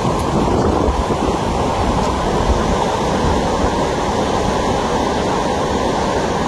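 Fast-flowing floodwater rushing in a steady loud roar, with wind buffeting the phone's microphone in gusts.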